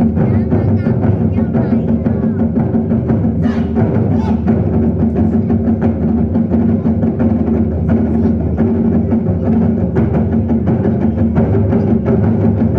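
A drum ensemble playing large drums in a fast, dense, unbroken stream of strokes, with a deep booming ring under the beats.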